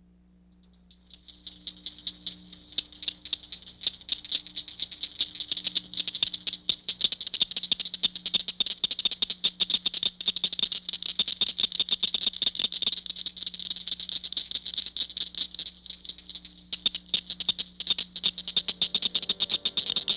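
Outdoor chorus of calling frogs or insects: dense, rapid clicking calls around one high pitch, fading in about a second in and thinning briefly near the end.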